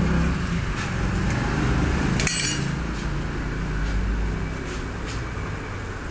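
Stainless steel ladles and serving pots clinking as food is served, with one louder clatter a couple of seconds in, over a steady low rumble.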